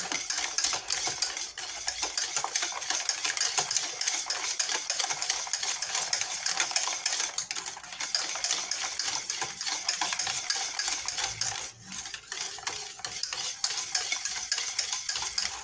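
Wire whisk stirring thick chocolate pastry cream in a stainless steel saucepan: fast, continuous scraping and clinking of the wires against the pan as the chocolate is mixed in to melt in the hot cream. The stirring briefly eases off about twelve seconds in.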